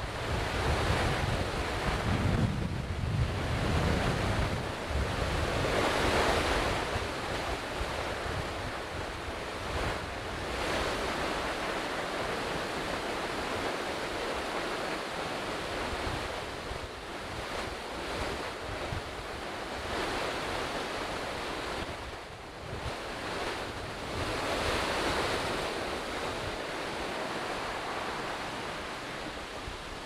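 Steady rushing of a waterfall, Otodome Falls, swelling and easing a little at times. Wind rumbles on the microphone in the first few seconds.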